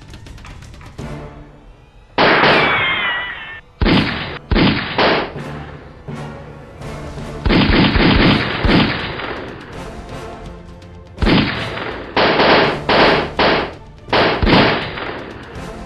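Gunshot sound effects in volleys over background music: a shot about two seconds in followed by a falling whine, three quick shots around four to five seconds, a rapid burst around eight seconds, and four more shots near the end.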